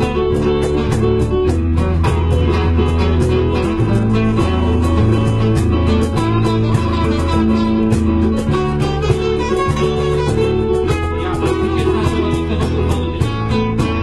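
Acoustic guitar music with a steady rhythm over a changing bass line, an instrumental passage with no singing.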